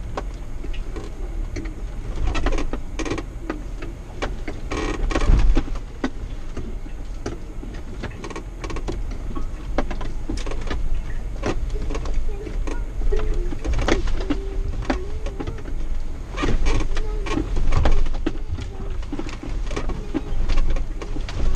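Jeep Wrangler engine pulling at low speed over a rough dirt trail, its note wavering with the throttle. Frequent knocks and rattles come from the body and suspension as it crawls over ruts and rocks.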